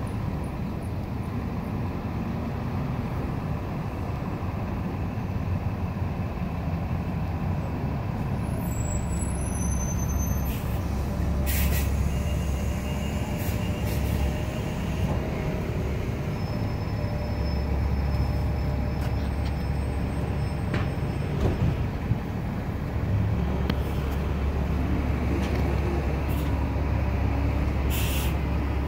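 Steady rumble of traffic on a busy city avenue, with a couple of short hisses about a third of the way in and again near the end.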